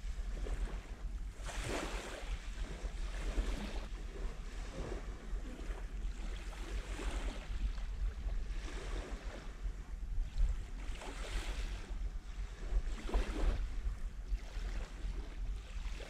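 Small waves lapping and washing onto the shore of a calm sea, one soft wash every couple of seconds, over a steady low rumble of wind on the microphone.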